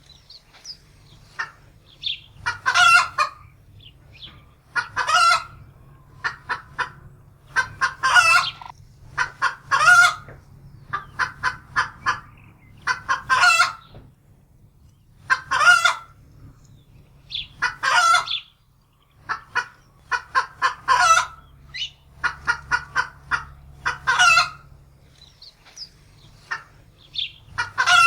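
Domestic hen cackling in alarm: repeated bouts of quick clucks, each ending in a longer, louder squawk, every two to three seconds, over a low steady hum.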